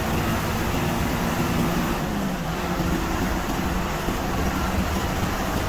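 Steady engine and road noise of a bus cruising at speed, heard from inside the cabin: a low hum under an even rush of tyre and wind noise.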